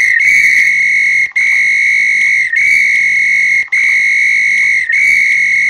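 Pigeon-training sound controller playing a recorded whistle tone through its loudspeaker: one loud, steady high tone that loops, restarting after a brief break about every 1.2 seconds.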